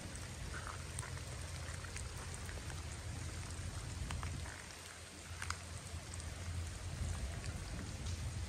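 Steady spring rain falling, an even hiss with scattered single drops ticking now and then, over a low rumble.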